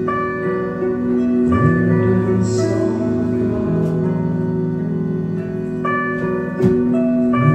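Live band music led by an accordion holding sustained chords that change every second or two, with a low sliding note twice.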